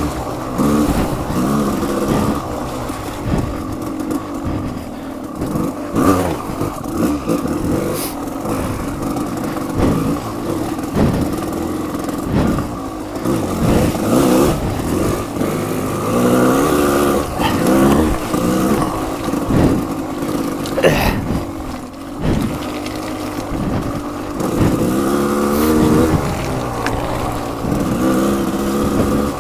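Off-road motorcycle engine revving up and dropping back again and again as it is ridden along a slippery trail, with occasional knocks and scrapes.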